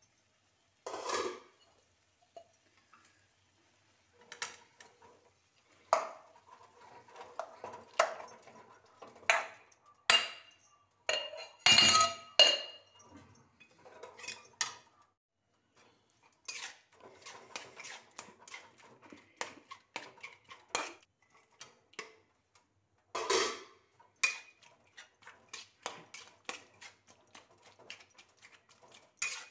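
Metal spatula scraping and clanking against an iron kadhai as soft cooked tomatoes are stirred and mashed, in irregular strokes with a few louder clatters.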